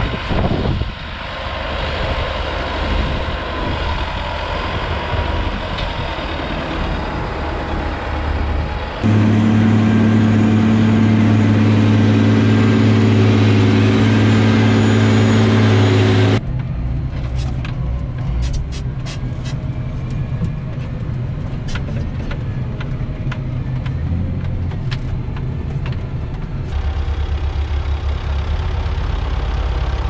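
Diesel farm machinery heard in successive clips that cut abruptly. First a tractor runs while its trailer tips out chopped silage. Then a self-propelled forage harvester's engine gives a loud, steady hum, followed by a stretch of engine noise with scattered sharp clicks, and near the end a wheel loader's diesel engine runs with a steady low rumble.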